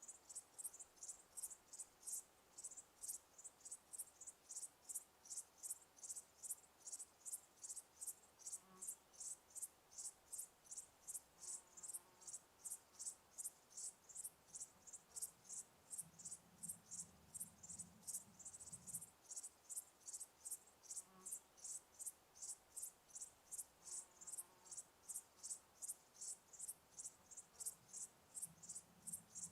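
Cricket chirping steadily in a high, even rhythm of about three chirps a second.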